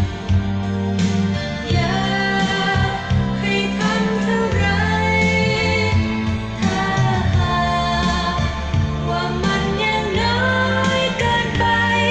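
A Thai pop song sung by a woman over a band with a steady bass line, played back from a vinyl LP through an NAD 3020 stereo amplifier and loudspeakers.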